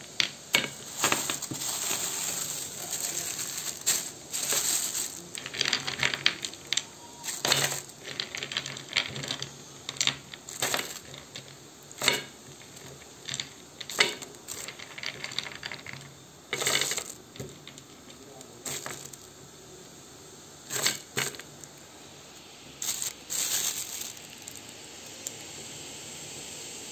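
Frozen raspberries being handled, knocking and clicking against a plate and rustling in a plastic bag: irregular hard little clicks and taps with crinkling plastic.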